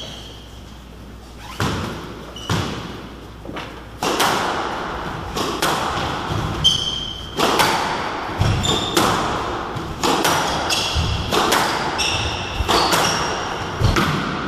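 Squash rally: the ball smacks off rackets and court walls in quick succession, starting about a second and a half in and coming fast from about four seconds, with shoes squeaking on the wooden floor between shots. A heavier thud near the end as a player goes down on the floor.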